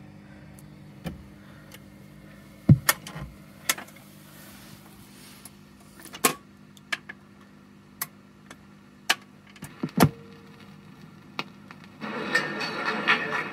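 Ultra 6018 record player's autochanger cycling: a steady motor hum with a series of mechanical clicks and clunks as the changer works and the tonearm swings in over the record. About a second and a half before the end, the record starts to play music.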